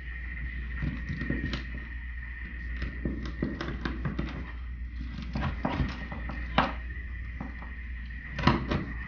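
A large cleaver chops down through a whole croaker onto a wooden cutting board, making a string of irregular knocks and thunks as it works at the backbone, which it does not cut through easily. The sharpest blows come about two-thirds of the way in and near the end, over a steady faint high-pitched hum.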